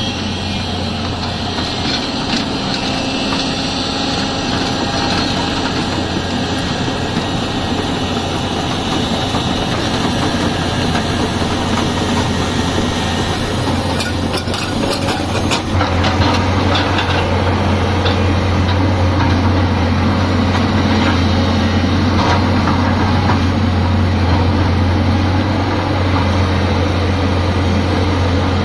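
Tata Hitachi excavator's diesel engine running steadily with a low hum, with a few knocks about halfway through, after which it gets a little louder.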